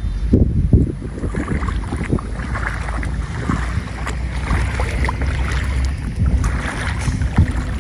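Wind buffeting the microphone: a steady low rumble, with scattered short knocks and rustles over it.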